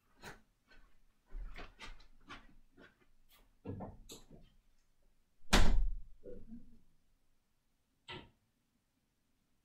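Footsteps and small knocks as someone walks off across a room, then a door shutting with one loud thud a little past halfway, and a single sharp click near the end.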